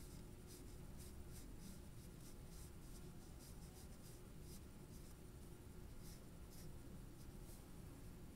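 Faint, short scratchy strokes of a colouring tool on drawing paper, about three a second, with a pause a little past halfway, over a low steady hum.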